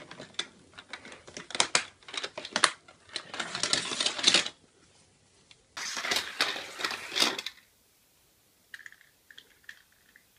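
Small plastic toy cars clattering and clicking down the plastic ramps of a toy car garage, in quick runs of rattling clicks that stop a little past halfway, leaving only a few faint ticks.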